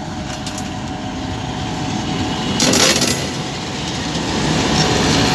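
Bangladesh Railway diesel locomotive and its passenger coaches passing close by on the next track: engine running and wheels rolling on the rails, growing louder as the coaches go by. A short burst of hiss comes about two and a half seconds in.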